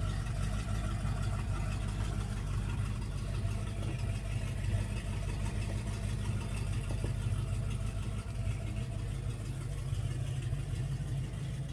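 Steady low hum of an engine idling.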